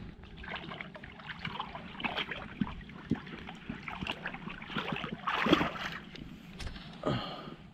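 Irregular water splashing as a hooked carp is played in the river near the bank, with the loudest splash about five and a half seconds in.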